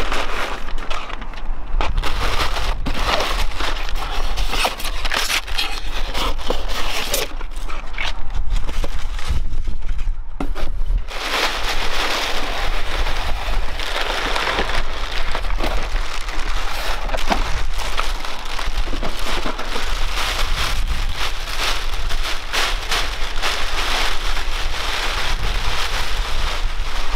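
Clear plastic wrapping and brown packing paper crinkling and rustling as a boxed marine water heater (calorifier) is unpacked and lifted out of its cardboard box, over a steady low rumble.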